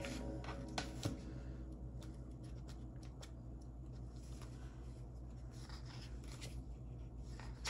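Faint rustling of paper sticker sheets and light taps of fingers pressing stickers onto planner pages, with a couple of small clicks about a second in. A steady low hum runs underneath.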